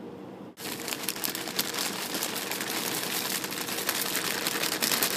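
Plastic bag of dry egg noodles crinkling steadily as it is handled and tipped to pour the noodles out, starting about half a second in.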